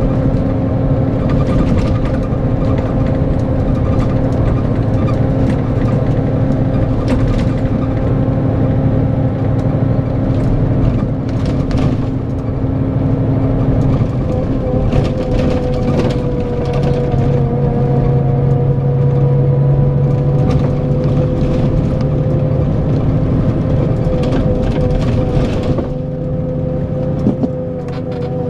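Scania K410EB6 coach's 13-litre straight-six diesel engine running steadily under way, with frequent light rattling clicks. The engine note shifts about halfway through and changes again near the end.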